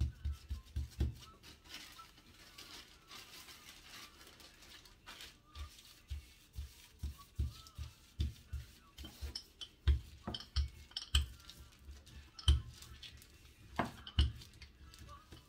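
Oiled hands patting and pressing a ball of oatmeal bread dough flat, a string of irregular dull pats and taps.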